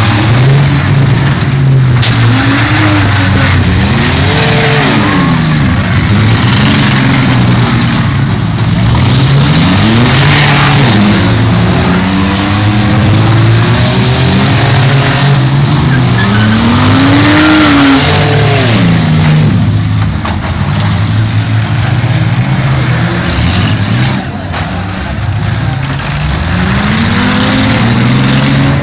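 Several demolition-derby car engines revving up and down together, loud, with a few sharp bangs of impact, the first about two seconds in.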